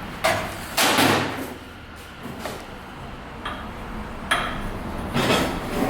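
A series of irregular knocks and clatters, like hard objects being handled or set down, the loudest about a second in.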